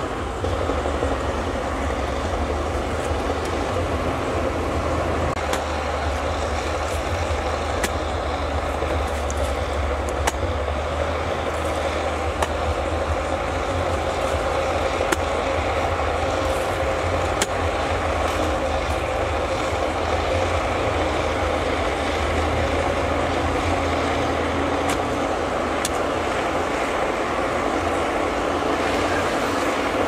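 Bulldozer's diesel engine running steadily, with scattered sharp knocks through it.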